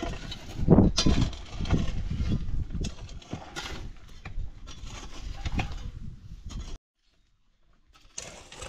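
Shovels and hoes scraping and chopping into dry, stony soil in irregular strokes, the loudest about a second in. The sound cuts out for about a second near the end, then resumes.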